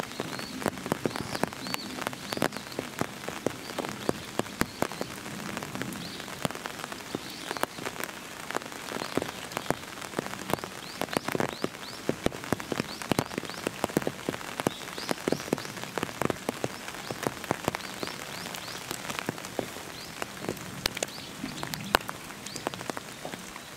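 Steady rain, with many sharp, irregular taps of drops hitting close by.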